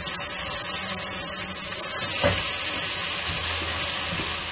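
Chopped onions sizzling as they fry in hot ghee in a saucepan, stirred with a spatula, with a single clack of the spatula against the pan about halfway through.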